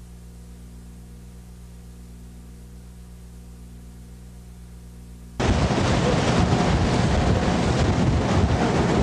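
A low, steady hum for about five seconds, then a loud rush of wind noise on the microphone with water cuts in suddenly.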